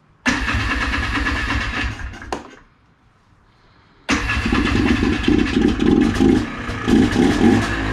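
A Polaris Trail Blazer ATV's single-cylinder two-stroke engine fires and runs for about two seconds, then dies. About four seconds in it starts again and keeps running, its revs rising and falling.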